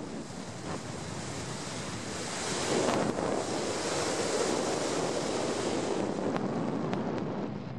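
Wind rushing over the microphone of a camera mounted on a hang glider's control bar during tandem flight tricks, a steady noise that swells about two and a half seconds in and holds.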